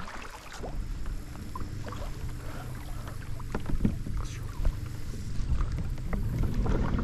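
45 lb-thrust Minn Kota electric trolling motor running under a kayak, a low steady hum getting a little louder toward the end, with water washing along the hull and a few light knocks.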